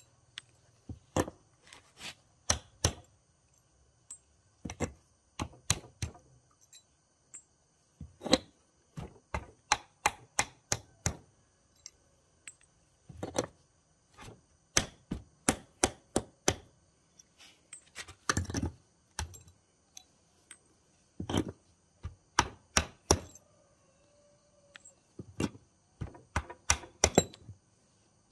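Repeated sharp hammer blows in irregular runs of several strikes, a few a second, with short pauses between runs: hand hammering during building work.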